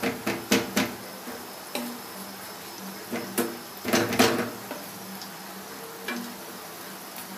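Metal spoon stirring in a steel pot and clinking against it: a quick run of taps at the start, scattered single knocks, then a louder cluster of knocks and scrapes around the middle, with the pot ringing briefly after each.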